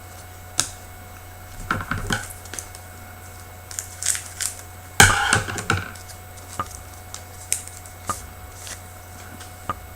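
Hockey trading cards being handled and flipped through by hand: scattered light clicks and rustles of card stock and pack wrapper, with a louder rustle about halfway through.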